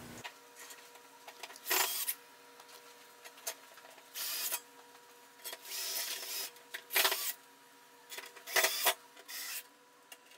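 Cordless drill driver running in a series of short bursts, about six, driving metal screws into the holes on the back of the flash heater unit to fasten it to its bracket.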